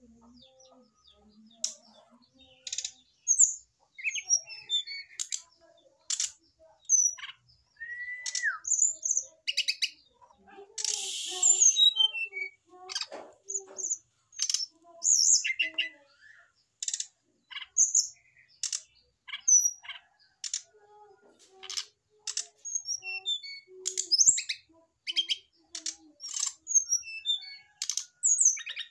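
Caged brown-chested jungle flycatchers (sikatan rimba dada coklat) calling in short, high, irregular chirps and clicks, with one slurred falling note about eight seconds in. A brief rustle comes about eleven seconds in.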